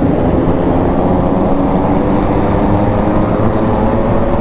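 Car engine running steadily through a loud aftermarket exhaust system, an even, unbroken drone with no revving.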